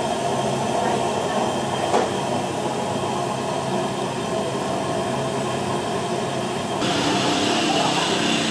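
Steady background noise, heaviest in the low and middle range, with faint voices under it and a single knock about two seconds in; the higher hiss gets louder near the end.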